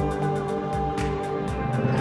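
Background music with sustained tones over a steady beat of about four taps a second.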